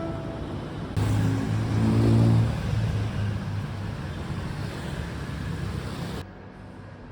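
A motor vehicle running close by in street traffic, its engine hum loudest about two seconds in, then cutting off abruptly a little after six seconds.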